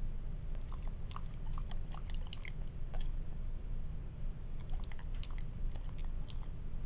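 A Labrador retriever chewing and working her jaws on a piece of carrot stuck in her mouth: irregular mouth clicks and smacks in two flurries, over a steady low hum.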